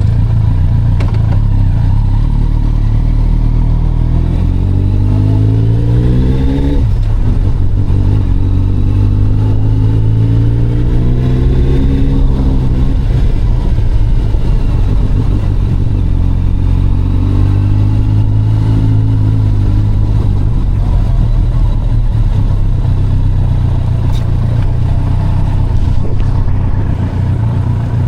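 A motor engine running loudly up close with a heavy low rumble, revving up in pitch several times and easing back between.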